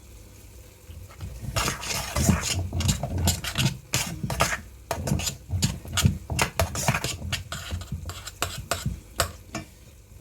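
A spoon stirring and scraping food in a dish, with a quick, uneven run of clinks and knocks against the dish starting about a second and a half in.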